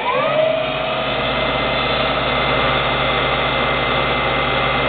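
2 hp three-phase knee mill head running under power. Its motor and spindle finish spinning up in the first half second with a rising whine, then run steadily with a hum and a steady whine.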